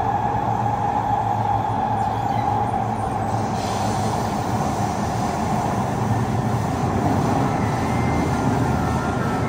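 Kawasaki C151 metro train running through an underground tunnel, heard from inside the carriage: a steady rumble of wheels on rail with a tone around the middle of the range. A faint high whine joins about eight seconds in.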